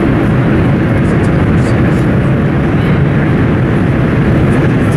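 Steady loud running noise of a Class 395 'Javelin' electric multiple unit travelling at speed, heard from inside the passenger coach: a deep, even rumble of wheels on rails and rushing air, with a few faint high clicks.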